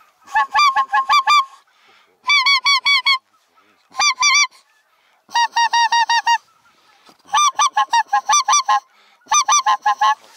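Goose honking in about six rapid bouts of repeated notes, each bout lasting about half a second to a second and a half, with short pauses between bouts.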